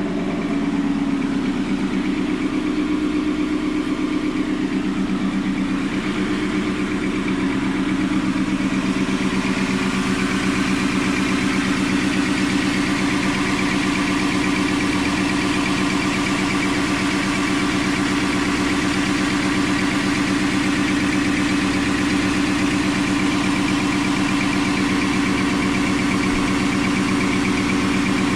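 Ford F-150's 5.0-litre V8 idling steadily through a Corsa performance exhaust.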